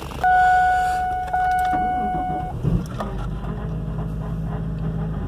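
A steady electronic tone sounds for about two seconds. Then the 1999 Pontiac Montana's 3.4-litre V6 cranks briefly, catches and settles into a steady idle on a cold start.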